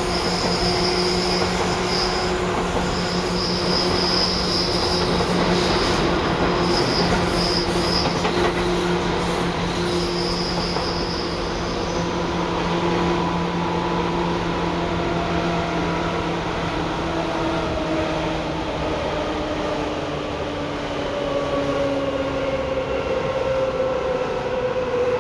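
Seibu 2000 series electric train running, with the steady rumble and motor whine of the car. High-pitched wheel squeal comes and goes through the first ten seconds or so. In the second half the motor tones fall slowly in pitch as the train slows.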